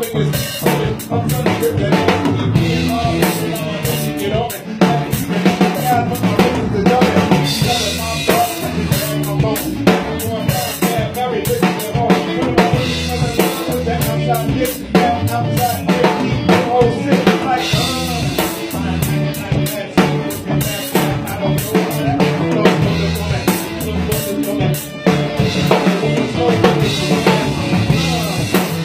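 Live band jam heard from right beside the drum kit: steady grooving drums with snare, bass drum and cymbal hits loudest, over pitched parts from the rest of the band.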